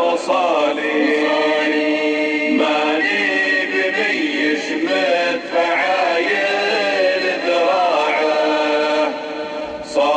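A man's voice chants a Nabati poem unaccompanied in the drawn-out sung style (shaylah). He stretches the last word of a line into long, wavering, ornamented notes, and the voice tails off briefly near the end before the next line.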